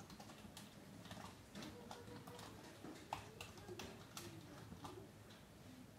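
Faint pencil strokes on paper: short, irregular scratches and ticks, a few a second, as small marks are drawn quickly one after another.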